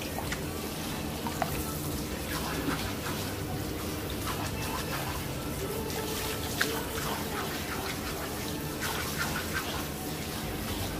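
Hand-held shower sprayer at a salon backwash basin running water over a client's hair: a steady hiss with scattered small splashes and ticks.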